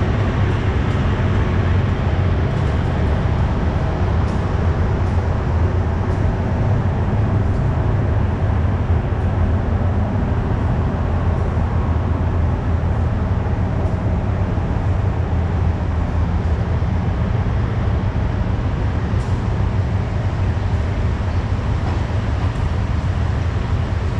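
Diesel railcar engine running steadily at idle, a continuous low drone.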